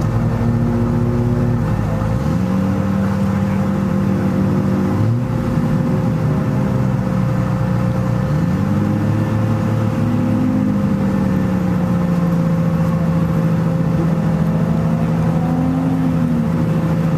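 Car engines idling, with engine revs rising and falling several times, one slow climb and fall lasting several seconds.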